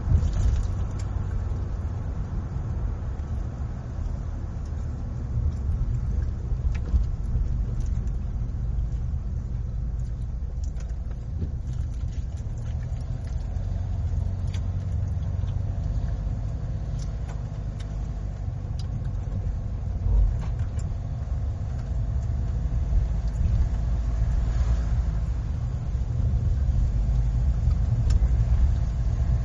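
Car driving on a road: a steady low rumble of engine and tyre noise, with a few faint ticks scattered through it.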